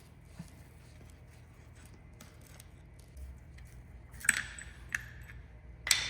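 Small metal parts and tools clinking together: a few faint ticks, then three sharp metallic clinks with a brief ring near the end, the first and last the loudest.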